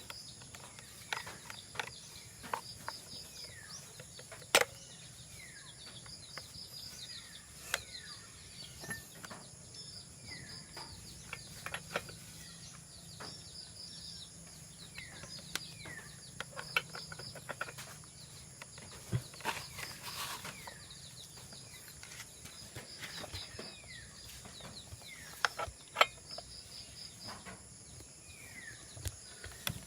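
Scattered sharp clicks and knocks, a few much louder than the rest, over birds chirping with short falling calls repeated every second or two and a high pulsing trill.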